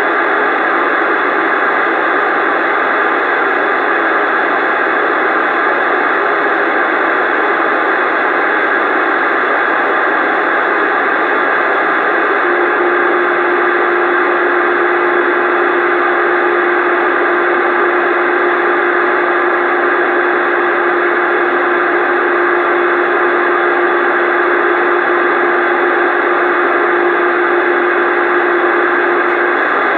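CB radio receiver hissing with loud, steady static. About twelve seconds in, a steady low-pitched tone joins the hiss and holds until just before the end.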